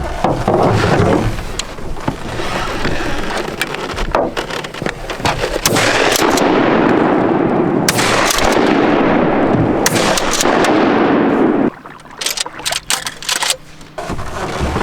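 Shotgun shots at incoming ducks, about three a couple of seconds apart, each trailing off in a long echo, over a loud rushing noise that cuts off suddenly. Short sharp clicks and knocks follow near the end.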